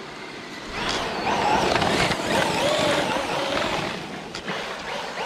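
Traxxas Unlimited Desert Racer RC truck's brushless electric motor whining over a rushing noise. The pitch wavers up and down with the throttle. It starts about a second in and eases off near the end.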